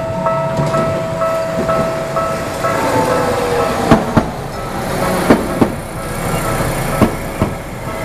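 Level-crossing warning bell ringing as a Tokyu Setagaya Line 300-series tram rolls past at low speed, with a falling whine near three seconds. From about four seconds in, the tram's wheels click over a rail joint in three pairs, one pair for each bogie.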